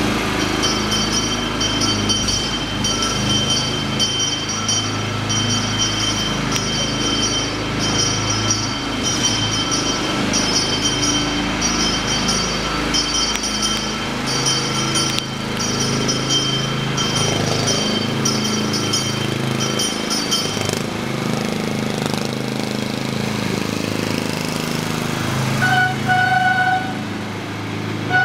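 Steady indoor background noise: a low hum under a repeating pattern of high electronic chimes, which stops about two-thirds of the way through, followed by two short beeps near the end.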